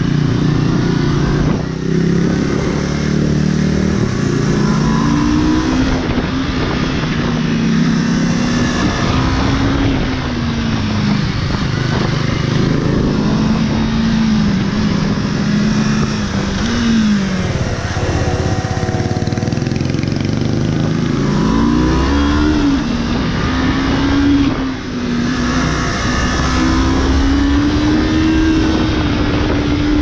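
Motorcycle engine being ridden, its pitch rising and falling over and over as the throttle is opened and closed, with a few quick drops in revs along the way.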